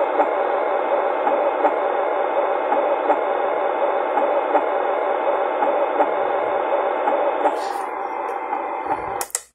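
Heartbeat sleep sound from a baby soother nightlight, played steadily through its small built-in speaker heard up close at the grille. A button clicks near the end and the sound cuts off.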